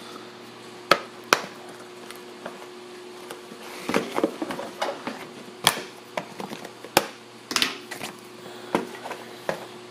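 Scattered plastic clicks and knocks as a Miller Classic Series welding helmet is handled with its front lens cover pried off, the shell and lens frame bumping on a steel welding table. A faint steady hum runs underneath.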